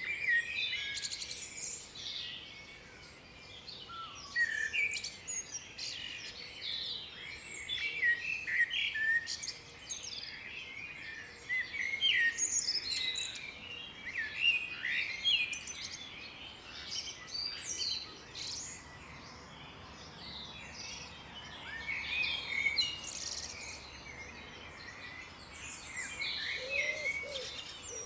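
Several songbirds singing at once, a dense mix of quick high chirps, whistles and trills that overlap and swell and ease in waves.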